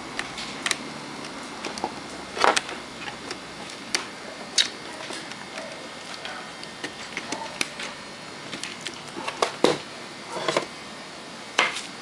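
Irregular sharp clicks and taps, several seconds apart, of hands and a tool handling a TV power supply board on the sheet-metal back chassis.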